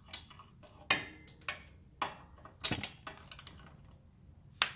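Metal clicks and clinks of a socket, extension and articulated joint being worked on a motorcycle exhaust header flange nut. There are five or six separate sharp clicks, with the sharpest near the end.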